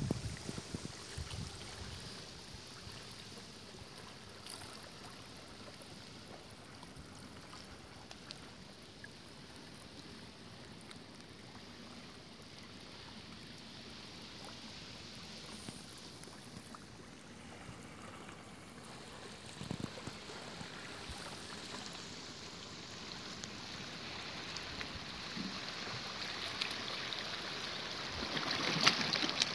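Small sea waves washing and lapping around shoreline rocks, a steady sloshing hiss that grows louder near the end.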